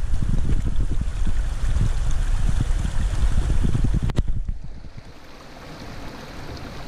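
Wind buffeting the microphone as low, gusty rumble, cutting off abruptly about four seconds in to a quieter stretch of outdoor noise before building again.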